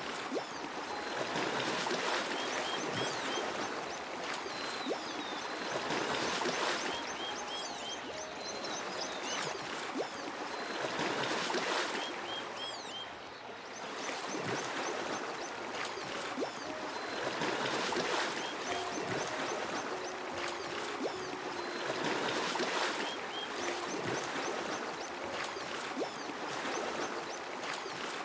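Flowing water, a steady rush that swells and eases every few seconds, with short high bird chirps over it.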